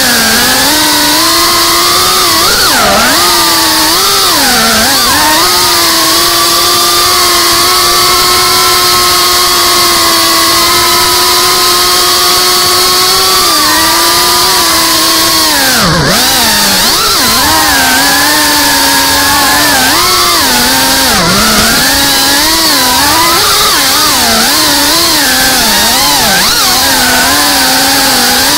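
Whine of a GEPRC CineLog35 FPV cinewhoop's brushless motors and ducted propellers in fast flight, the pitch rising and falling with the throttle. The pitch drops sharply several times where the throttle is chopped.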